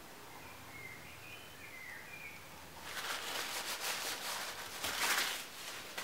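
A few faint bird chirps in the background, then, about three seconds in, a paper towel rustling and rubbing over a laminated wood rifle stock as excess two-component glue is wiped away around a freshly screwed-in sling swivel stud.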